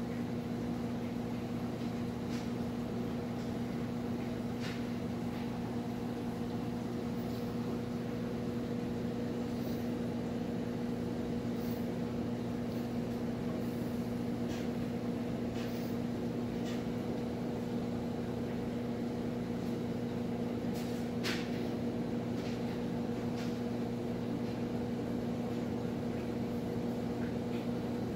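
Saltwater aquarium pump running with a steady low hum at a few fixed pitches. Occasional faint clicks sound over it.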